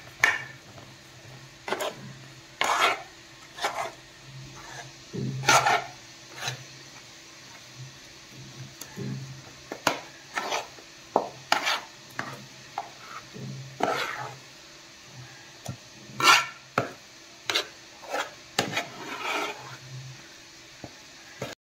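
Thick jackfruit and wheat-flour dough being mixed in a metal bowl by hand and with a metal spoon: irregular scrapes and knocks of the spoon against the bowl and the wet squelch of the dough.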